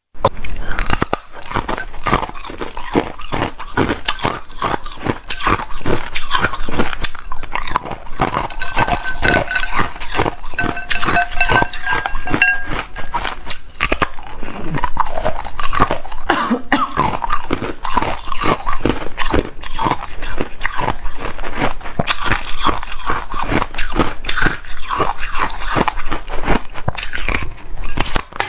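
Hard ice being bitten and chewed close to the microphone: loud, irregular crunching and cracking that goes on throughout.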